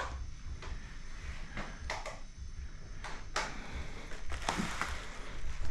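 Scattered light taps and clicks of a soldering iron tip jabbing into the plastic of a motorcycle headlight housing, melding a broken tab back on. The taps come at an uneven pace, about a dozen in all, over a faint steady hum.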